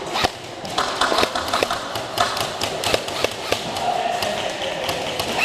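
Airsoft gunfire: irregular sharp clicks and snaps of airsoft guns firing and BBs striking hard surfaces, several a second.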